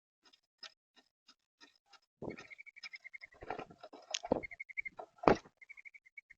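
Birds at a feeder: light pecking taps, then several heavier knocks against the feeder, with a rapid trilled call three times over the second half.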